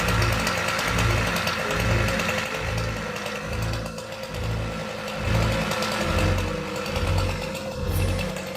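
Background music with a steady bass beat, over the steady running of a chainsaw.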